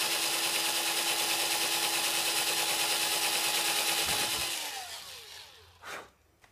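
Challenge cordless drill with a thin 2 mm bit running at high speed, boring a pilot hole through the wooden skateboard tail: a steady motor whine that stops about four seconds in and winds down in pitch, followed by a single knock.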